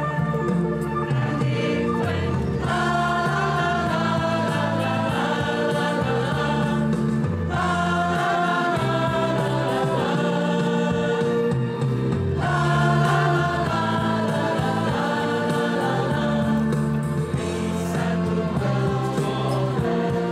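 Choir singing a slow piece in long, sustained chords over a low bass line.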